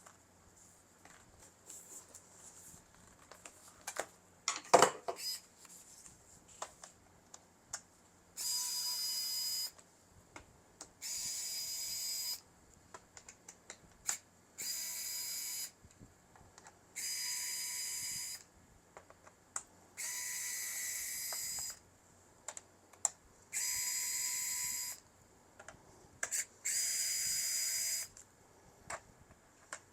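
Small electric screwdriver running in seven short whirring bursts, each about a second long, as it works on laptop case screws. Light clicks and handling knocks come between the bursts, with one louder knock about five seconds in.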